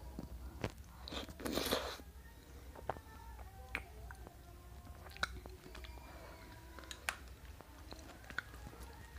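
Close-up eating sounds of someone chewing and biting dragon fruit ice cream, with many sharp clicks and a louder, crunchy burst about one and a half seconds in.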